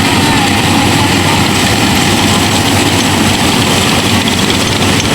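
Yanmar AW70 VW combine harvester's diesel engine and machinery running steadily with a low hum and a dense mechanical clatter.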